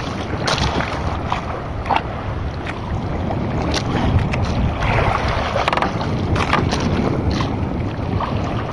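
Steady wind rushing over the microphone and sea water washing against a small outrigger boat, with scattered small knocks.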